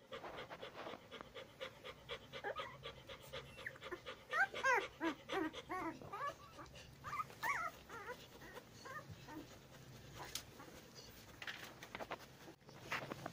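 Ten-day-old Labrador puppies squeaking and whimpering as they jostle to nurse: a run of short, high, rising-and-falling squeaks about four seconds in, and a few more about three seconds later. Underneath, the mother Labrador pants steadily.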